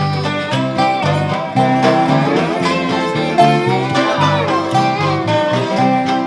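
A band playing an instrumental break in a country-bluegrass style: quick plucked string notes and sliding melody lines over bass notes alternating on a steady beat.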